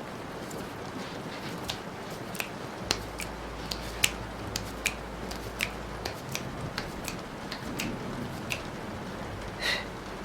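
Steady rain with irregular sharp ticks of drops hitting a surface, and a short brighter sound near the end.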